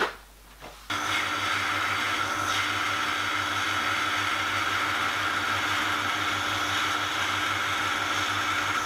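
Metal lathe running steadily with a constant hum and whine while a boring tool cuts the bore of a graphite-filled PTFE piston-ring blank. It starts suddenly about a second in.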